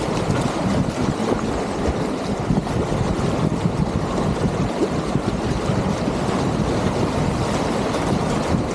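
Steady rushing whitewater of a river rapid, heard from a kayak running it.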